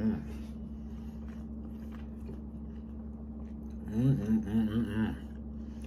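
A man humming 'mmm' with his mouth full as he eats, approving of the food: one short hum at the start and a run of three or four 'hmm' hums about four seconds in. A steady low hum in the room runs underneath.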